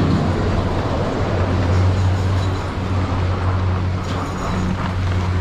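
Steady low hum and rumble of a POMA Challenger detachable quad chairlift running at near full speed, heard while riding the chair.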